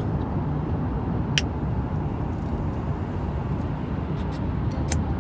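Steady low road and engine rumble inside a moving car's cabin, with a sharp click about a second and a half in and a fainter one near the end.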